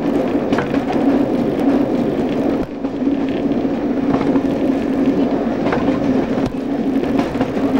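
Class 115 diesel multiple unit under way, heard from inside the carriage: a steady low drone from the diesel engines and running gear, with rail noise and occasional sharp clicks.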